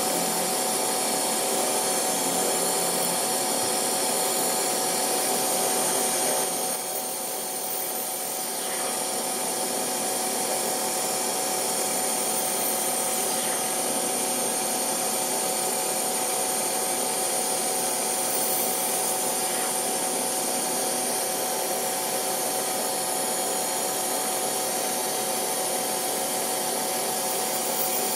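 Boxford BUD lathe running steadily, a lathe tool taking a slow facing cut across the end of a brass workpiece. It goes a little quieter for a couple of seconds about seven seconds in.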